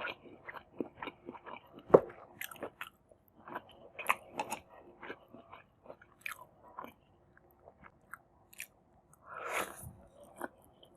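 Close-miked chewing and biting of a meal of Maggi masala noodles, egg, tomato and cucumber: a run of short wet clicks and crunches, with one sharp loud click about two seconds in. A longer rushing sound comes near the end.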